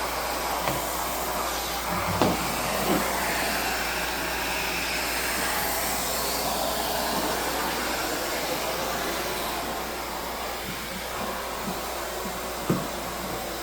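Central vacuum cleaner hose and floor tool drawing air steadily as they are pushed over the floor, picking up crumbs, with a few sharp knocks where the wand bumps against things.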